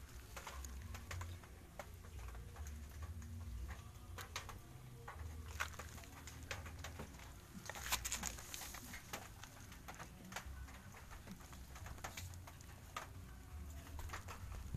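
Scattered irregular clicks and rustles with an uneven low rumble, from a handheld phone being moved about and touched; a denser, louder rustle about eight seconds in.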